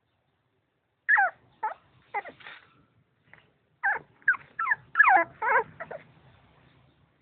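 A dog whimpering: a run of about ten short, high, whining cries, several of them falling in pitch, starting about a second in and dying away near the end.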